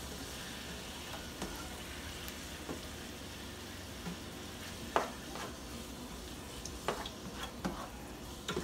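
Callaloo with bell peppers and onions sizzling steadily in a frying pan as it cooks down, with a few light clicks about five and seven seconds in.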